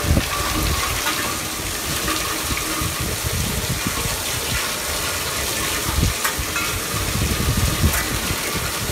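Heavy rain pouring steadily, with gusts of wind buffeting the microphone. A few short ringing notes from hanging metal-tube wind chimes sound about six and a half seconds in.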